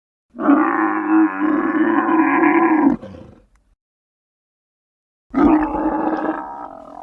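Stegosaurus roar sound effects: a pitched, growling roar about three seconds long, then a pause, then a second roar beginning about five seconds in.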